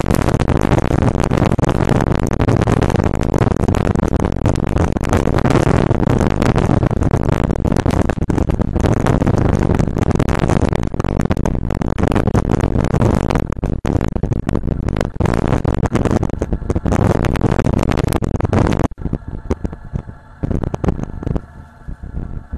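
Riding noise from a moving motorcycle: wind buffeting the camera microphone over the running engine. It is loud and steady, then drops off sharply near the end to fainter, uneven wind and engine sound.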